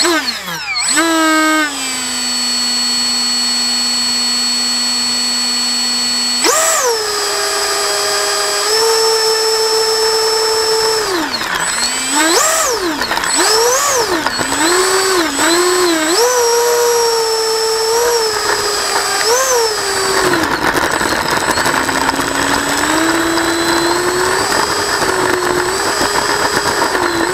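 Electric motor and propeller of a radio-controlled model plane whining at changing throttle. The pitch drops at the start, holds low, steps up about six seconds in, then rises and falls in quick throttle blips. From about twenty seconds in a rough rushing noise joins and the tone slowly climbs.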